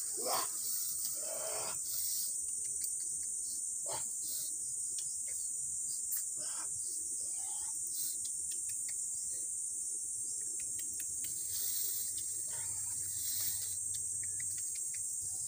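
Steady high-pitched chorus of insects, crickets or cicadas, with scattered small clicks and rustles of leaves being handled.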